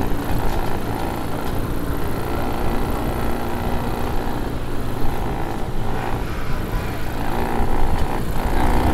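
ATV quad bike engine running as it rides along the sand, with wind rumbling on the microphone.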